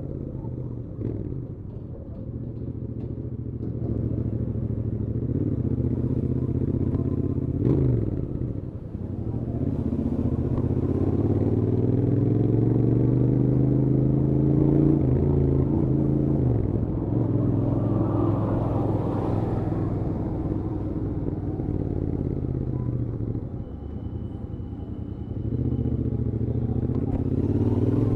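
Royal Enfield Interceptor 650's parallel-twin engine through its stock exhaust, running at road speed, its revs climbing and dropping back several times as the rider works the throttle and gears, over wind and road rush.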